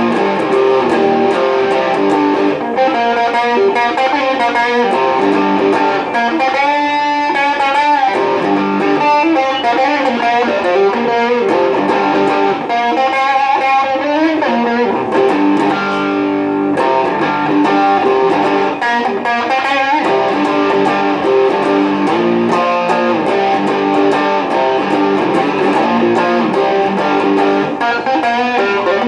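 Electric guitar playing a blues-rock piece, with wavering bent notes about a quarter of the way in and again around the middle.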